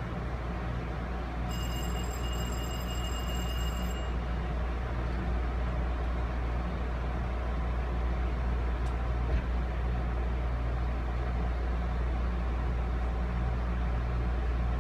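Steady rumble of an Amtrak Amfleet passenger coach rolling along the rails, heard from inside the car, slowly getting a little louder. A high steady tone sounds for a couple of seconds near the start, and there is a single knock about halfway through.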